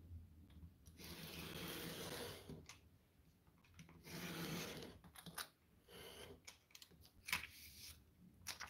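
Utility knife drawn along a steel ruler, slicing through a stack of thin copier paper on a cutting mat: faint scraping strokes, two long ones and a shorter one about four seconds in, then a few light clicks and taps.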